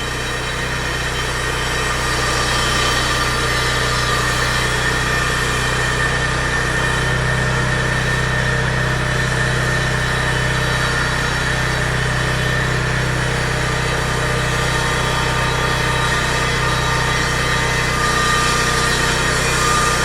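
Engine of construction machinery running steadily at a sidewalk repair, a continuous low drone with a thin steady whine above it; it grows louder over the first two seconds, then holds.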